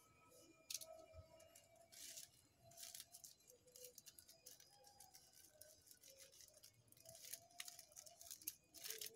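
Thin plastic covering bags faintly crinkling and rustling in scattered short bursts as they are pulled at and cut open.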